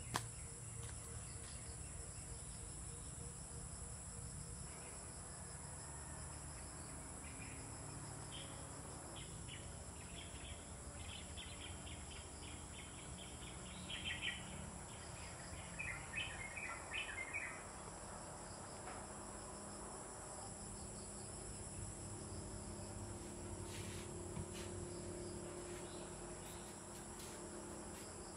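Steady, high-pitched insect chorus of crickets or similar insects droning without a break. About halfway through come several quick runs of rapid chirps.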